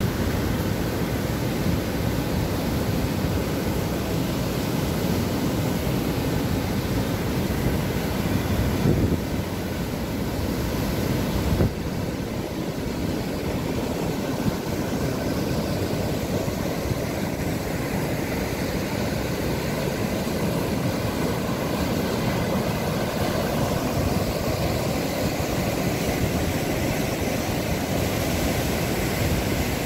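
Whitewater rapids on the Galana River rushing steadily over rock, a continuous deep roar of churning water.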